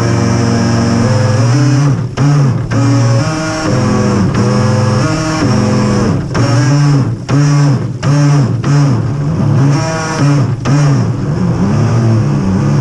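Radio-controlled boat's motor revving up and down with the throttle, its pitch rising and falling every second or so, with several brief cut-outs in between.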